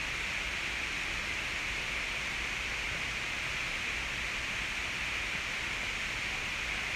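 Steady, even hiss of background noise, strongest in the upper-middle range, with no other sound standing out.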